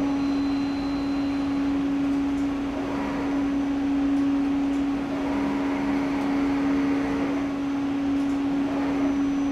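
CT scanner's steady electrical hum, with a single strong low tone, as its motorised patient table drives the couch further into the gantry. A faint whir is added in the middle.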